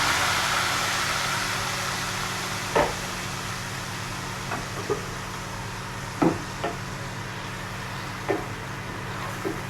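Blended peanut paste sizzling in hot oil, the hiss dying away over the first few seconds. Then a utensil knocks against the pot about six times, short and sharp, over a faint steady hum.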